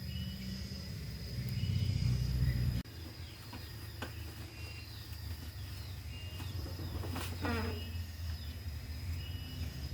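Outdoor ambience of birds chirping and a steady high insect tone over a low buzzing hum. The hum drops sharply in level about three seconds in. A wavy, falling call sounds about seven seconds in.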